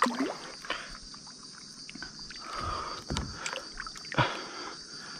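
Water sloshing and splashing beside a kayak as a hooked fish struggles at the surface, with a few sharp knocks against the hull, over a steady high hiss.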